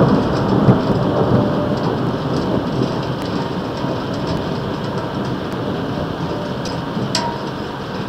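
Low rolling thunder dying away slowly under steady rain, with a few light ticks and one sharper tick near the end.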